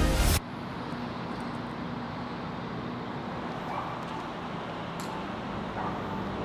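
Music cuts off abruptly just after the start, leaving a steady low background noise with a faint click about five seconds in.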